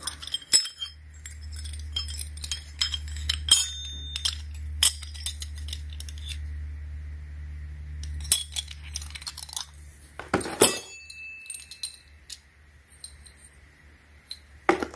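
Metal hole saw cups and their arbor clinking and knocking against each other as they are handled, in irregular sharp clicks with a louder knock about ten and a half seconds in. Under the first two-thirds runs a low steady hum that stops about ten seconds in.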